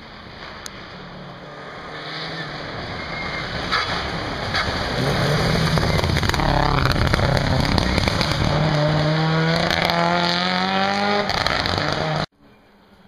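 Rally car approaching at full speed and passing close by, its engine revving hard, with a couple of sharp cracks as it nears. It then pulls away accelerating, the engine pitch rising through the gear, until the sound cuts off suddenly near the end.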